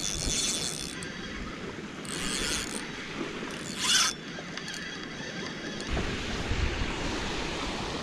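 Ocean surf washing onto a sandy beach, with wind buffeting the microphone and a few short hissing surges.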